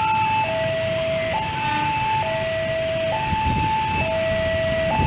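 Railway level-crossing alarm sounding its two-tone electronic warning, a higher and a lower tone swapping back and forth about once a second. Wind rumbles on the microphone underneath.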